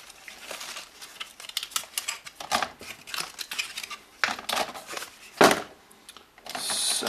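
Cardboard packaging and plastic inlay strips being handled: the thin card rubs and flexes while the plastic strips click and clatter as they are pulled out and dropped into a box. One sharper knock comes about five seconds in.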